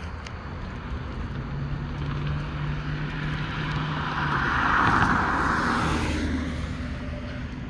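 A car passing close by on the road: its tyre and engine noise builds to a peak about five seconds in, then fades, over a low steady engine hum.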